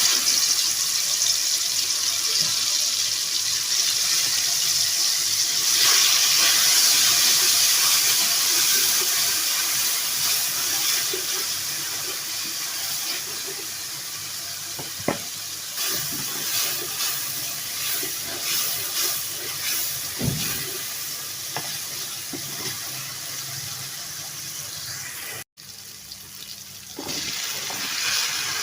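Water running steadily from a kitchen tap into a sink, with a few light knocks partway through.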